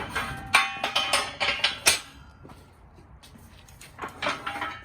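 Steel parts of a workshop press and tools clanking and clinking as they are moved and set up, each knock ringing briefly. A string of knocks comes in the first two seconds, then a quieter pause, then more knocks near the end.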